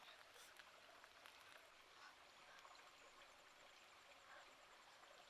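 Near silence: faint background hiss with a few soft, brief clicks.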